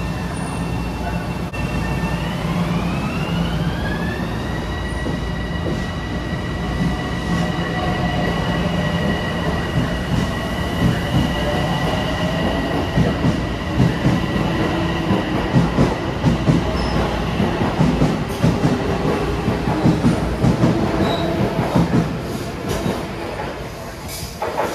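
Metro-North M7A electric multiple-unit train pulling out: its traction motors whine, stepping up in pitch about two seconds in and then holding steady. The wheels click over the rail joints as the cars roll past, and the sound falls away near the end as the train leaves.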